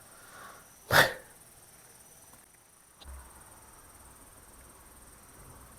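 A single short, loud animal call about a second in, over a quiet background.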